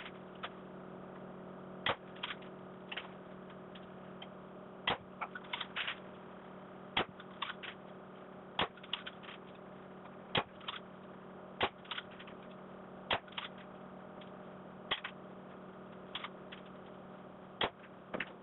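Self-cocking Cobra crossbow pistol being shot at a foam-board target: sharp snaps and clicks every second or two, from bolts being loosed and striking the board and the bow being cocked and reloaded between shots. A steady low hum runs underneath.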